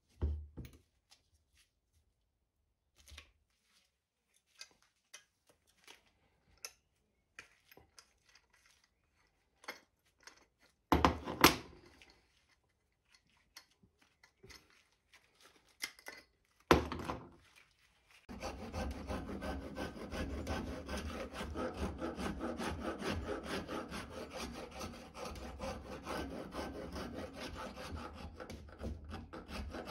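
A flat metal file rasping across a wooden cleaver handle clamped in a vise, in quick, even back-and-forth strokes, starting about two-thirds of the way through. Before that, only sparse light clicks and a few knocks from handling the clamped, glued handle.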